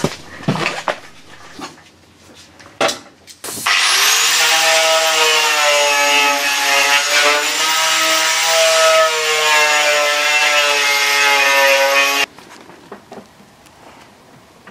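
Right-angle grinder with a wire wheel spinning up and scouring rusty steel under a van's wheel arch, running hard for about eight seconds with its pitch wavering a little, then cutting off abruptly. A few light knocks come before it starts.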